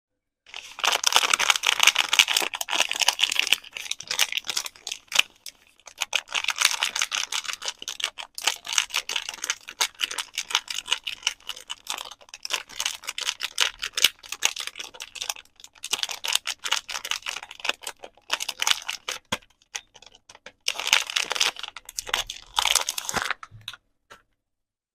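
Soap packaging being handled and unwrapped: crisp crinkling and rustling with quick taps and clicks, coming in bursts and stopping about a second before the end.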